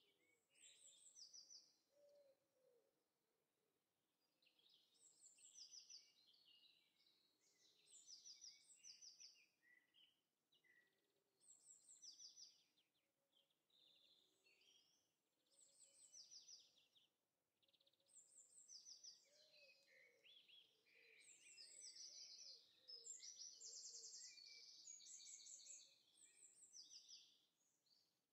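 Faint birdsong ambience: several birds chirping and trilling in short high phrases every second or two, with soft low calls underneath, busiest in the second half.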